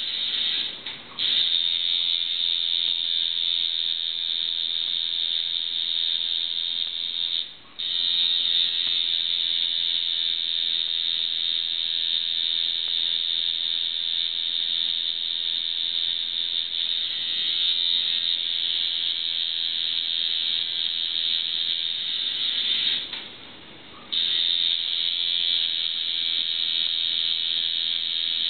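Tattoo machine buzzing steadily. It stops briefly three times, for about a second the last time, two-thirds of the way through.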